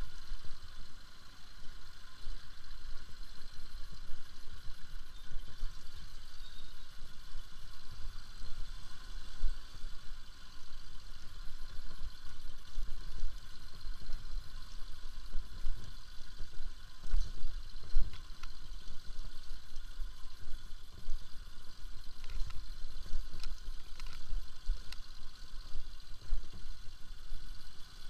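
Bajaj Pulsar RS200's single-cylinder engine running at low speed on a rough gravel track, with an uneven low rumble from the bumps and a few sharp ticks in the second half.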